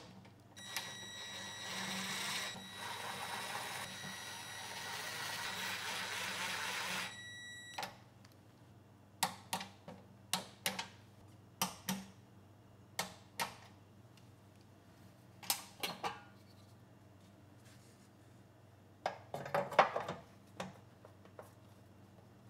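A steady hiss with a high whistle runs for several seconds at first. Then come a series of sharp clunks and taps as the generator's fuel tank and housing cover are handled and set in place, with a quick cluster of knocks near the end.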